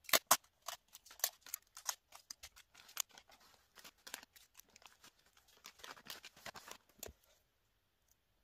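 Gift-wrapping paper crinkling and crackling as it is folded and pressed down by hand, in irregular short crackles with handling of scissors and a roll of tape. The loudest crackles come near the start.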